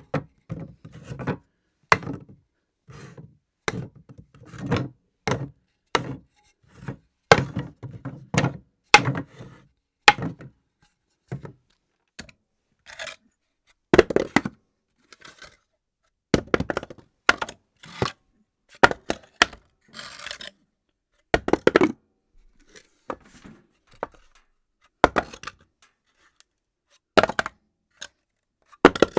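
A long series of objects dropped one after another onto a hard floor, roughly one a second. Each is a sharp thunk or clatter, some with a quick rebound or rattle, separated by silence.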